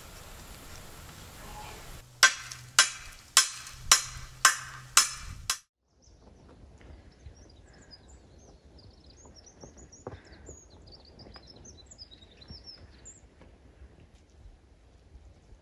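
A run of six sharp knocks, about two a second, over a low steady hum, cut off abruptly. After a short gap, birds chirp faintly against quiet outdoor background.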